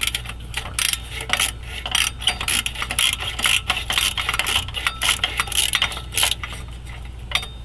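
Hand tools and metal parts clinking and knocking in quick, irregular strikes and scrapes, as the exhaust collector bolts of a truck are worked on.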